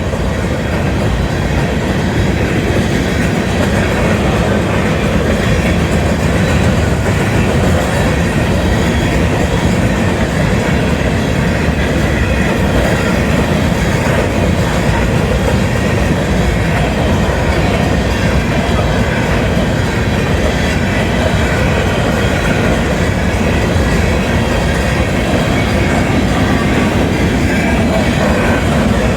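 Union Pacific grain train's hopper cars rolling past, a steady, loud, unbroken noise of steel wheels on rail.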